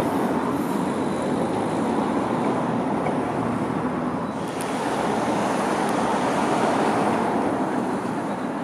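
Steady rumble of a train on the line: a train running away along the track. About four seconds in the sound shifts, and a diesel locomotive is heard approaching.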